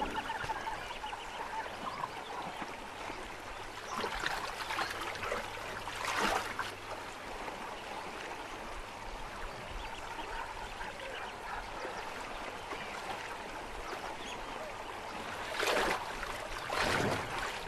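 Shallow river water running, with a few splashes; the loudest, near the end, come from a hippopotamus wading through the water.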